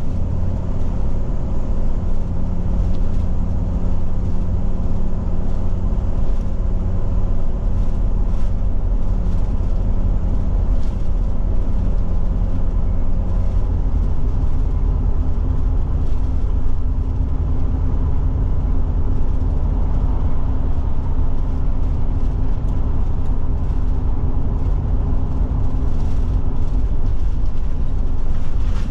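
Forest River Forester motorhome running at highway speed, a steady engine and road-noise drone heard inside the cab. The pitch of the hum shifts a little about halfway through.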